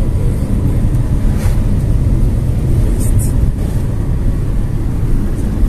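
Steady low rumble of road and engine noise inside a moving car, with a few brief hisses about one and a half and three seconds in.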